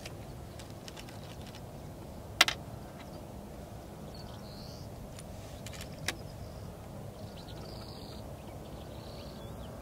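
AirMaks Katran X HP .22 PCP air rifle firing a shot: one sharp crack about two and a half seconds in, then a much fainter click about six seconds in. Under it is steady outdoor background noise with a few faint bird chirps.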